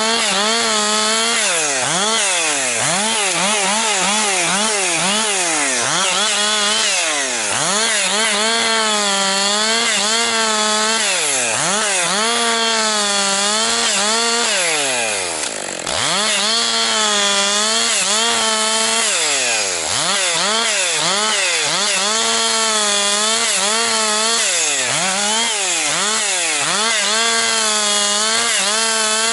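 Husqvarna 262XP two-stroke chainsaw bucking firewood. The engine pitch rises and falls again and again as it revs and pulls through the cuts, dropping briefly about halfway before revving up again.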